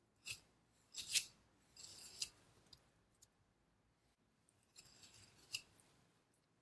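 Long butcher's knife slicing through raw wagyu beef in short, crisp cutting strokes: a cluster in the first couple of seconds and another group near the end, quiet between.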